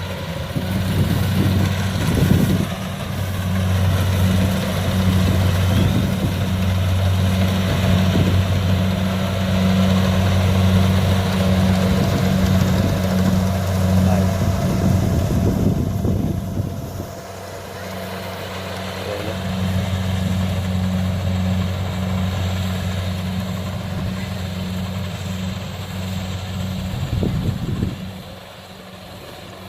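Kubota DC70 combine harvester's diesel engine running at a steady pitch under working load. It dips in loudness about two-thirds of the way through and again near the end.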